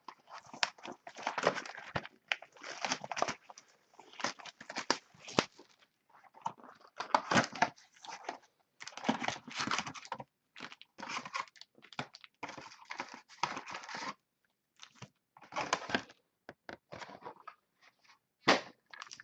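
Plastic shrink-wrap on a trading-card box being torn off and crinkled, in irregular bursts with short pauses.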